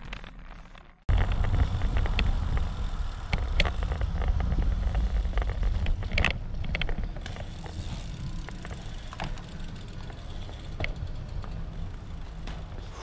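Intro music fading out, then a sudden cut about a second in to wind buffeting the microphone and rolling noise from a moving road bike, with scattered clicks and rattles. The rumble eases a little after about seven seconds.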